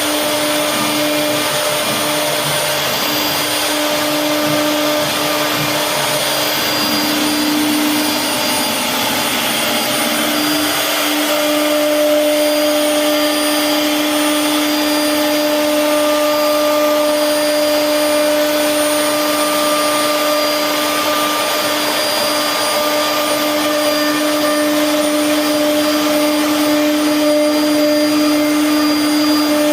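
CNC wood router's spindle running at a steady high whine while the bit carves wood, with an even rushing noise of the cut.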